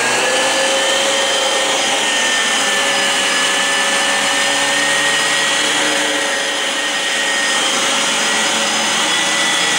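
Dyson vacuum cleaner running steadily at full speed while vacuuming: a high, constant motor whine over rushing air, dipping slightly in loudness a little past halfway.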